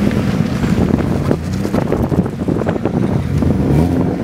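Turbocharged Mazda MX-5 B6ZE 1.6-litre four-cylinder engine, fitted in an RX-7 FC3S, idling steadily with a pulsing exhaust, with wind on the microphone.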